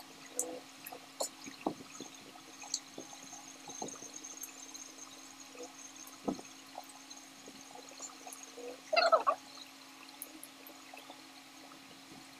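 Wet mouth sounds of eating juicy lansones: scattered small clicks and smacks as the fruit is peeled and chewed, with a louder, short wet sound about nine seconds in.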